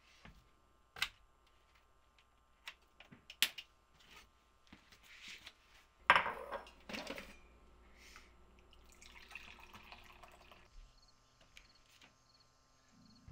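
Quiet kitchen and household handling sounds: scattered small clicks and knocks, then a short rush of liquid about six seconds in and a softer pouring hiss a few seconds later. Near the end the sound changes to a faint steady ambience with high chirps repeating regularly.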